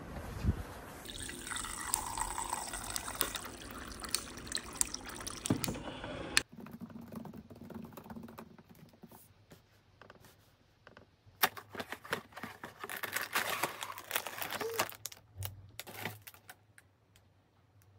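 Outdoor ambient noise while walking, with a faint falling whistle-like tone. It cuts about six seconds in to a quiet room, where laptop keys click and then a plastic snack wrapper crinkles as it is torn open.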